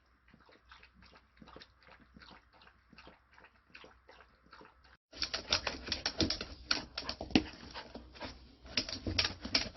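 Toy poodle eating eagerly: fast, irregular clicks and crunches of chewing, faint at first and much louder about five seconds in.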